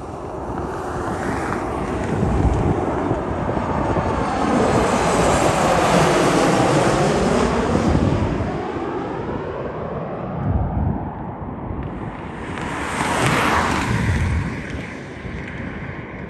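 Boeing 737 MAX 8's CFM LEAP-1B jet engines passing low overhead on landing approach: the engine noise grows to its loudest around five to eight seconds in, with a sweeping whoosh that dips and rises in pitch as the plane passes over, then eases off as it flies away. A rush of wind on the microphone comes about thirteen seconds in.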